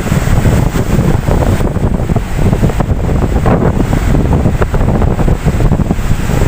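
Ocean waves washing in steadily, with wind rumbling on the microphone.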